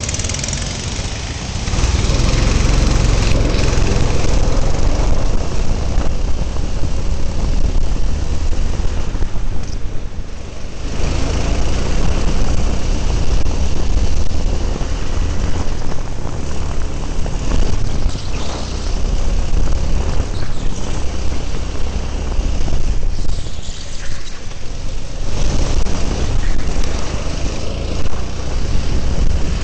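Go-kart engine running hard at speed, heard from on board the kart, loud and steady with two brief dips in level, about ten seconds in and again around twenty-four seconds.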